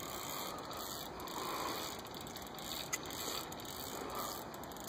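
Spinning reel working under load as a hooked sturgeon is played on the line, a steady mechanical sound with one short click about three seconds in.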